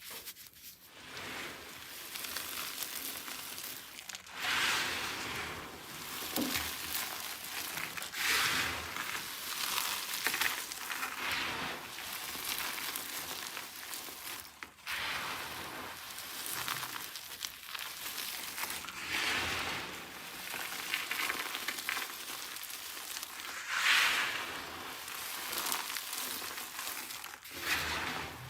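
Dry soap crunching and crackling as it is worked, with louder crunchy swells every few seconds.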